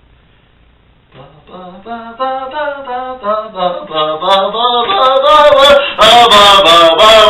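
A voice singing without accompaniment, starting about a second in and building from soft to very loud, its pitch wavering and sliding. The voice turns fuller and loudest from about six seconds in.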